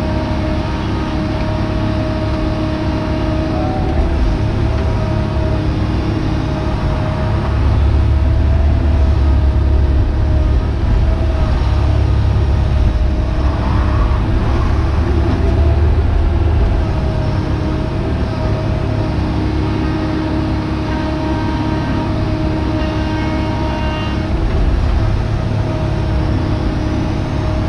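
Hitachi Zaxis 130 excavator's diesel engine and hydraulics working under load, heard from inside the cab as the bucket digs and lifts clay. The engine runs steadily and pulls harder for several seconds midway.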